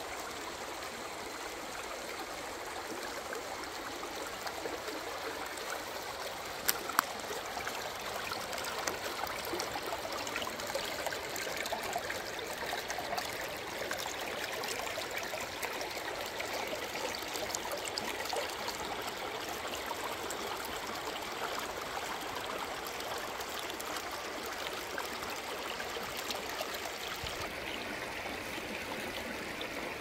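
Shallow river burbling steadily over stones and riffles. Two sharp clicks a fraction of a second apart come about seven seconds in.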